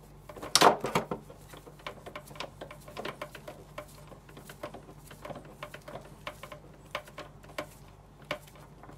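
Irregular plastic clicks and ticks as an inline filter cartridge of a reverse-osmosis water purifier is twisted by hand onto its threaded fitting, with a louder cluster of knocks just under a second in.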